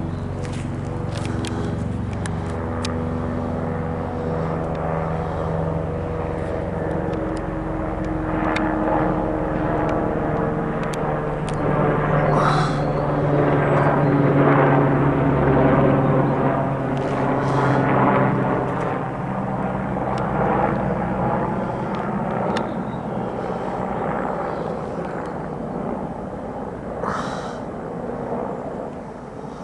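Airbus Helicopters AS355 Ecureuil twin-engine helicopter flying overhead: turbine whine and rotor noise grow louder toward the middle as it passes, then fade as it moves away.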